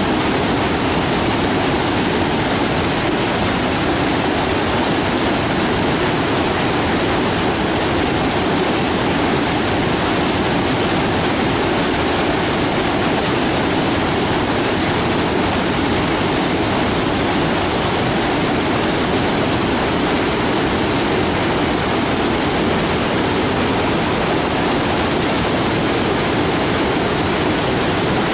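Waterfall: rushing water falling and churning, a loud, steady, unbroken roar.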